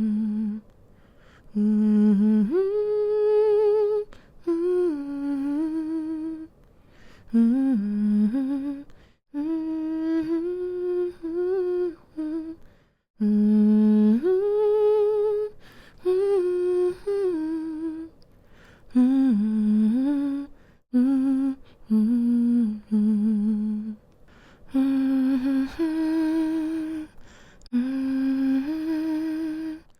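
A woman humming a slow, soothing lullaby tune with her lips closed, in short phrases of held and gliding notes separated by brief pauses for breath.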